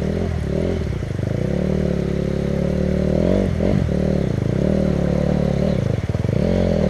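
Yamaha two-stroke dirt bike engine running while the bike stands still. From about halfway, the throttle is blipped about once a second, and each blip makes the pitch rise and fall.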